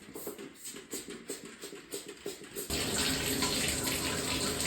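Quick repeated scrubbing strokes on a bathtub, then about two-thirds of the way in the bathtub tap is turned on and water runs steadily into the tub.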